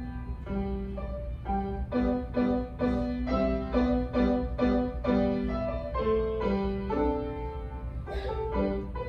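Grand piano played solo, a melody of separate notes struck about twice a second over repeated lower notes, with a steady low hum underneath.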